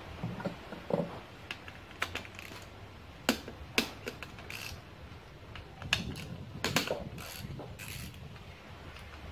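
Hand ratchet wrench clicking in short, irregular runs as it works the bolts on the upper intake plenum of a Nissan VQ35DE V6.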